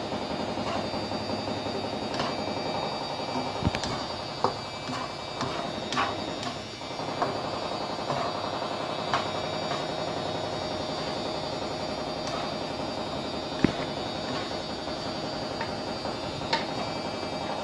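Wooden spatula scraping and knocking against a non-stick pan while rice is stir-fried with vegetables and egg, about ten scattered knocks, over a steady hum.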